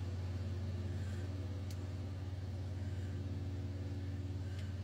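A steady low engine drone, with two faint small clicks about two seconds apart.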